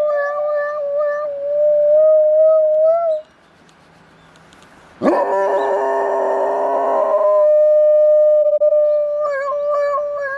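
A dog howling like a police siren, in long notes held at a nearly steady pitch. It breaks off about three seconds in, comes back loud about five seconds in with a rising swoop into a fuller, richer howl, then settles into another long steady note.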